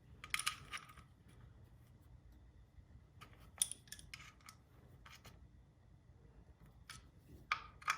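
Faint, scattered metallic clicks and clinks of hand tools on the engine's front-cover bolts as they are tightened by hand, in small clusters a few seconds apart.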